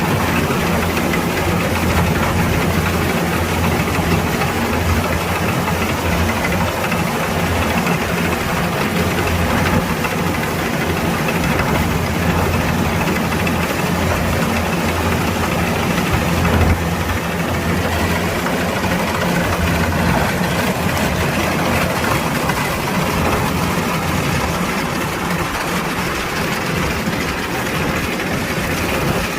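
Kubota DC-105X combine harvester's diesel engine running steadily with machinery hum. Its deep drone eases a little about halfway through.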